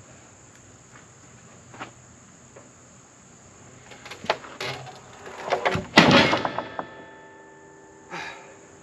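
Sawmill work on heavy oak slabs: scattered knocks and scraping build up to a loud metal clang about six seconds in, which rings on for a couple of seconds. Another knock comes near the end.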